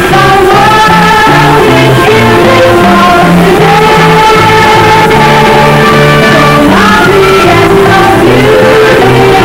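Upbeat music with singing over a bouncing bass line of short repeated notes.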